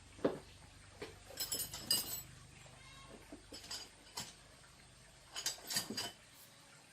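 Light metallic clinks and taps of small metal parts being handled, in two short clusters with a brief ring, over a faint low hum.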